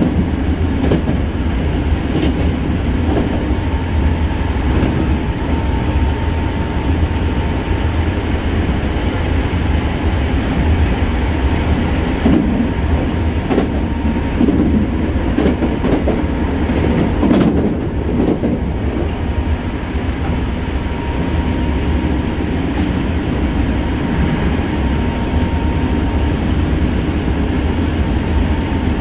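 Running noise heard inside a Hankyu 6300 series 'Kyo-train' car: a steady rumble of wheels on rail with scattered clicks over the rail joints and a faint steady tone.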